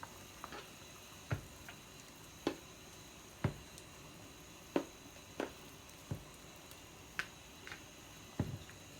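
Pieces of breadfruit dropped one at a time into a pot of water, each landing as a short plop, about eight in all at irregular intervals of roughly a second.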